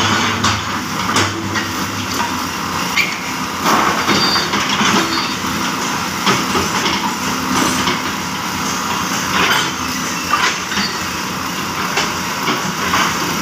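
Hyundai crawler excavator's diesel engine running steadily as the bucket digs and scrapes through rubble and soil, with occasional sharp knocks of the bucket and its linkage.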